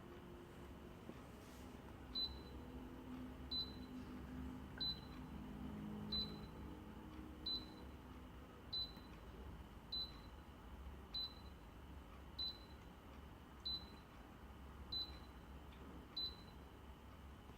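Short, high electronic beeps from a Deerma F600 air humidifier's control panel, evenly repeated about once every 1.25 seconds, twelve in all, starting about two seconds in.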